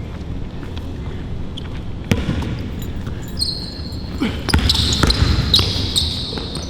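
Basketball bouncing on the court during play, with sharp bounces. From about halfway, a run of short high squeaks, sneakers on the court.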